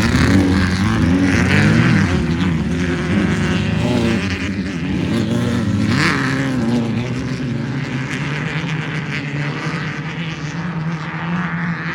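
Off-road race vehicle engine revving, its pitch rising and falling several times in the first half, then running steadier.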